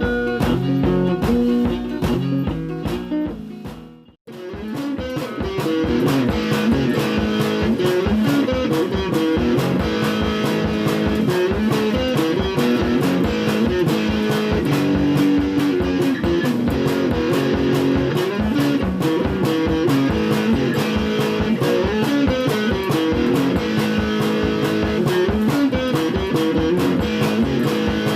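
Guitar music: plucked and strummed guitar playing over a steady beat. About four seconds in the music fades out briefly and a new passage starts.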